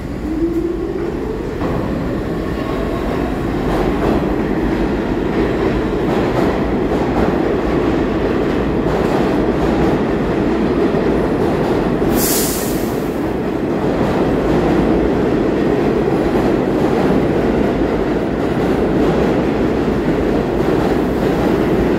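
R46 subway train accelerating along the track, its traction motors whining up in pitch over the first couple of seconds, then running steadily with wheels clattering on the rails. A short hiss cuts in about twelve seconds in.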